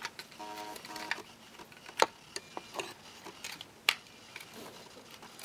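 Hard plastic parts of a Transformers Jetfire action figure clicking and ticking as they are handled and pressed into place, with two sharp clicks, about two seconds in and about four seconds in.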